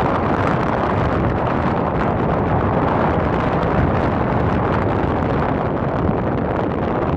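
Strong wind blowing over the microphone: a loud, steady rushing noise with low buffeting.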